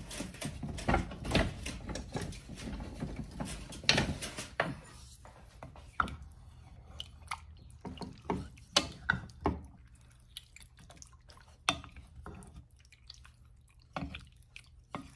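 Marinated chicken pieces stirred and turned in a glass bowl of adobo marinade with a wooden spoon, giving wet sloshing and dripping with scattered knocks. It is busiest for the first few seconds, then thins to separate drips and knocks.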